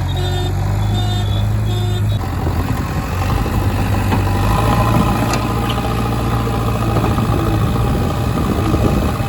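JCB 3DX backhoe loader's diesel engine running steadily, with a repeated electronic beeping over it for the first two seconds.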